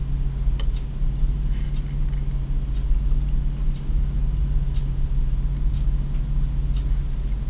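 A steady low hum, with a few faint light clicks over it.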